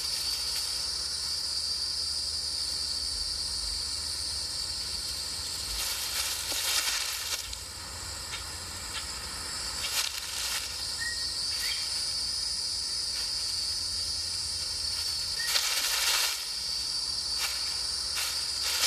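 Steady high-pitched insect chorus, with a few short rustling noises about six, ten and sixteen seconds in.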